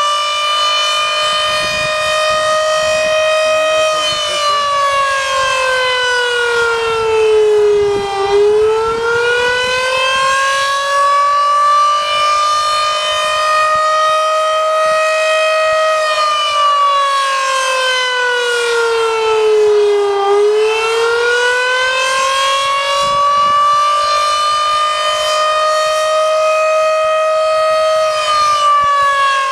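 Model 5 electromechanical air-raid siren sounding the attack signal: a loud wail that slides down in pitch and climbs back up twice, holding at its high pitch between the dips and starting to fall again near the end.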